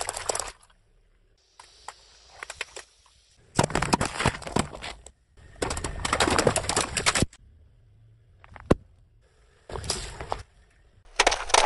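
A car tyre rolling over and crushing small objects, such as plastic jelly cups and long modelling balloons, in several separate bursts of crackling, crunching and squashing. A single sharp snap comes about eight and a half seconds in.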